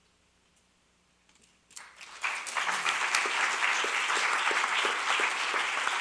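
Near silence, then an audience breaks into applause about two seconds in and keeps clapping steadily.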